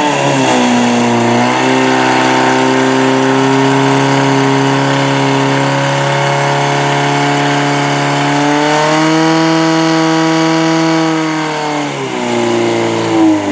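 Portable fire pump's engine running at high revs under load, pumping water into the hose lines. Its pitch sinks about a second in, holds steady, rises again about nine seconds in, then drops and picks up briefly near the end.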